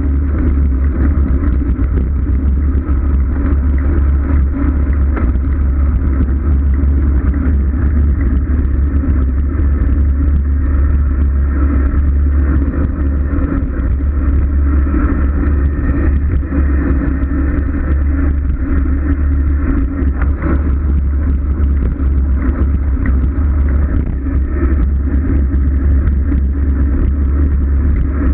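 Wind buffeting the microphone of a bike-mounted GoPro on a fast road-bike descent, with road noise from the bike: a loud, steady, deep rumble without breaks.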